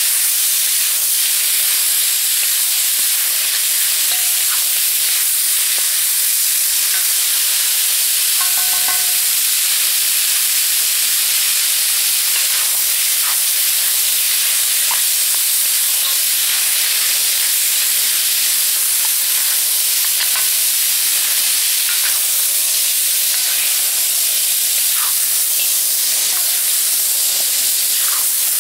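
Sliced beef sizzling steadily in a hot cast-iron wok as it is stirred with a wooden spoon.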